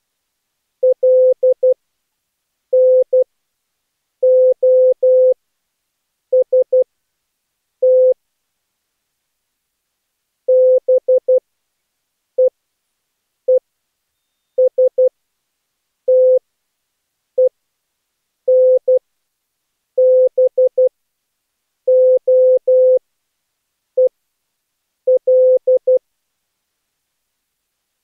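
Morse code practice word: a single steady mid-pitched tone keyed on and off in short dots and longer dashes, grouped into characters with pauses between them.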